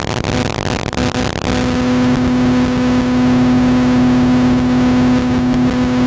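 A motor or engine running steadily, an even hum at one unchanging pitch over a low rumble, coming up to full strength about a second and a half in.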